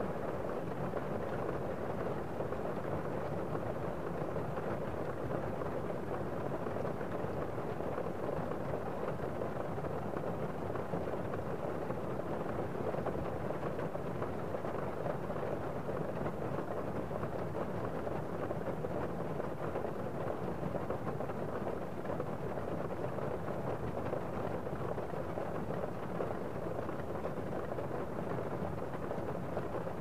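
Steady rain falling: an even, muffled rush with no single drops or thunderclaps standing out.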